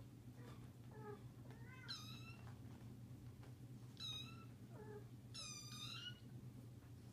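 Four-week-old kittens mewing: several thin, high-pitched mews, the loudest about four and five and a half seconds in.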